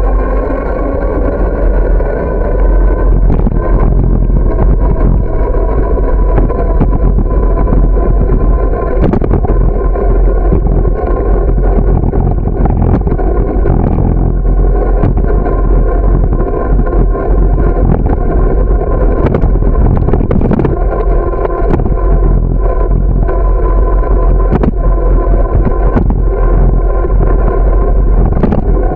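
Road and wind noise from a bicycle riding along an asphalt street: a loud, steady rumble with a droning hum running through it, and scattered sharp knocks as the bike rolls over bumps and cracks.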